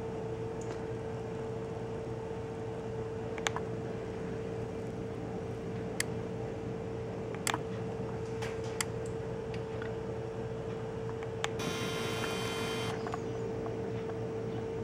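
Steady mechanical hum with a constant tone, broken by a few sharp ticks and, about twelve seconds in, a buzzy sound lasting just over a second.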